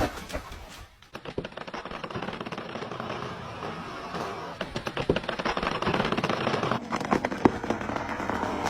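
Rapid, irregular sharp cracks and snaps of wood, thickening in the second half, with no chainsaw engine running.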